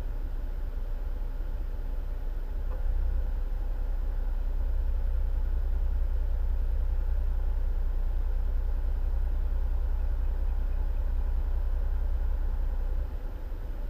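Wind buffeting the microphone as a low, fluttering rumble that strengthens about three seconds in and eases suddenly near the end, with a faint steady hum underneath.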